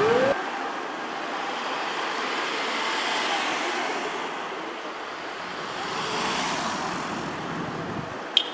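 Road traffic noise, swelling gently as vehicles pass. A fire engine's motor siren is winding up at the very start and cuts off abruptly. There is one sharp click near the end.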